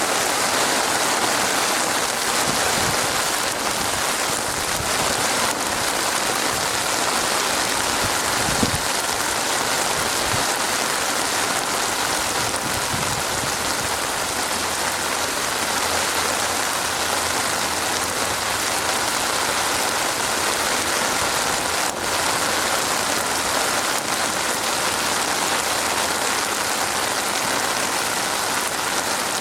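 Steady rain falling on a surface, an even hiss of drops with a few soft low thumps about a third of the way in.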